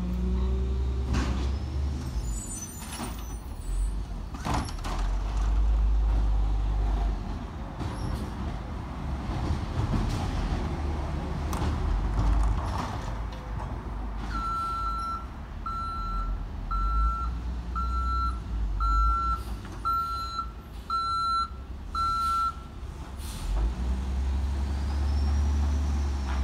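Crane Carrier LET1 garbage truck's diesel engine running, its low rumble rising and easing, with a few clanks in the first half. Around the middle its reversing alarm beeps about eight times, roughly once a second, while the truck backs up.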